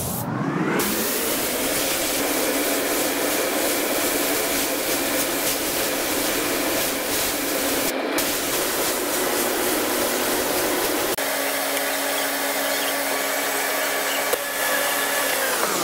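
Steady rushing hiss of compressed air from a paint spray gun, with a steady mechanical hum under it. The sound sweeps in over the first second and out at the end.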